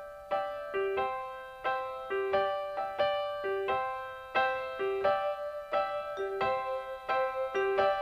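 Background music: a gentle solo piano intro, chords struck in a steady slow rhythm with a lower note repeating between them.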